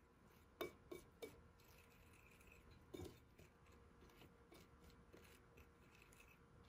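Faint clinking and scraping of a wire whisk stirring flour and spices on a ceramic plate. There are three sharper taps in the first second or so and another about three seconds in, then light, quick ticking.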